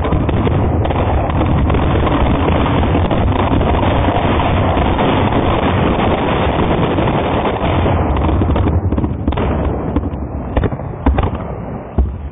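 About a thousand firecrackers packed inside a whey protein tub going off in a rapid, unbroken crackle of bangs. After about eight seconds the crackle thins out into a few separate last bangs and dies away near the end.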